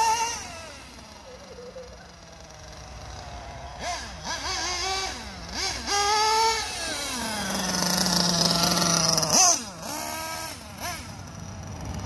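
Small nitro engine of a 1/8-scale Hobao Hyper 8 buggy revving up and down in quick bursts as the car drives, its pitch rising and falling, with a longer steady high-revving stretch near the end. The engine is on its first run after a full rebuild, with the carburettor set rich.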